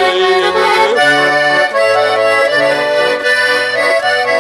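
Accordion playing a song's instrumental interlude, a melody over changing bass chords; a singer's held last word of a verse fades out about a second in.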